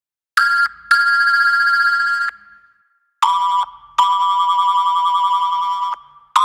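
Thomas the Tank Engine whistle sound effect: a short toot followed by a long toot, then the same pair again at a lower pitch. A further toot begins right at the end.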